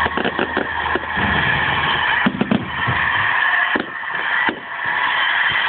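Fireworks going off: a quick run of sharp bangs and crackles in the first second, then a few more louder bangs scattered through the rest, over a steady noisy hiss.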